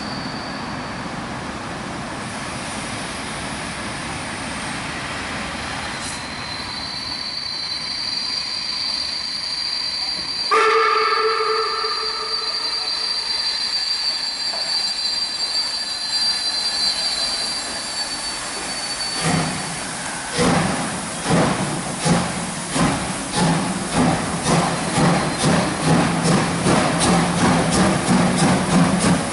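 Class 52 two-cylinder steam locomotive starting a train. Its whistle gives one short blast about a third of the way in, over a steady hiss of steam. About two-thirds of the way in it moves off: the exhaust chuffs start slowly, about one a second, and quicken steadily to two or three a second by the end.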